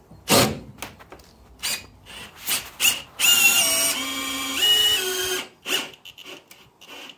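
Makita 18V cordless drill working its bit into a bifold door cill: a few short trigger bursts, then a longer run of about two seconds with a motor whine that steps up and down in pitch, then more short bursts.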